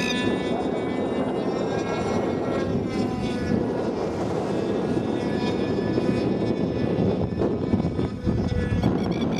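Engine of a radio-controlled model airplane in flight, a steady drone that fades after about three seconds, under heavy wind rumble on the microphone.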